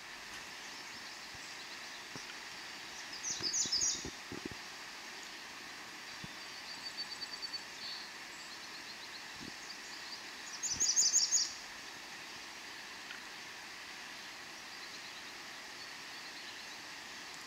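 Songbirds calling: two short bursts of rapid high notes about three and eleven seconds in, with a thinner trill between them, over a steady outdoor hiss.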